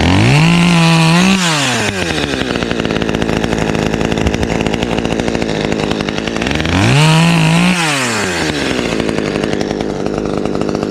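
Two-stroke chainsaw idling, with the throttle opened twice to high revs for about a second each, the pitch rising, holding and then falling back to idle.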